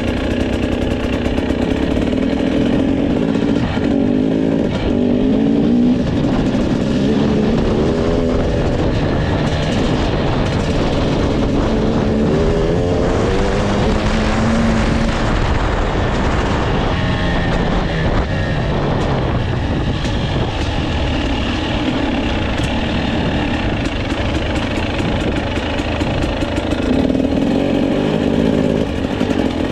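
KTM 250 TPI single-cylinder two-stroke enduro motorcycle engine running under way, its pitch rising and falling repeatedly with the throttle.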